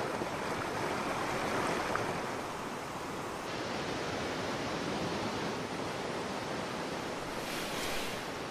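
Rushing whitewater of river rapids: a steady wash of noise with no break.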